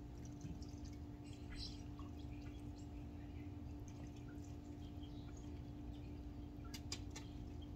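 Faint water drips and small clicks as a dirty pool basket is handled and emptied, over a steady low hum; a few sharper clicks come near the end.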